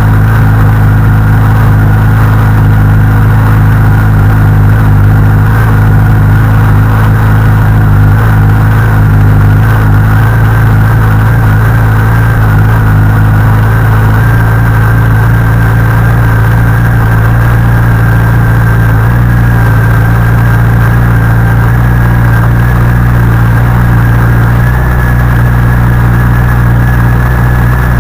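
Honda CBR1100XX inline-four engine idling steadily after a cold start, carrying an abnormal mechanical noise that the owner suspects comes from a faulty cam chain tensioner.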